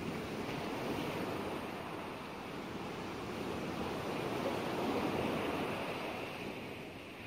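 Ocean surf: a steady rush of waves breaking and washing, swelling and easing gently.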